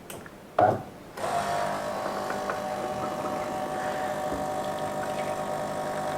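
A short knock, then about a second in the De'Longhi Eletta ECAM44.660.B bean-to-cup coffee machine starts up and runs with a steady mechanical hum while making an extra long coffee.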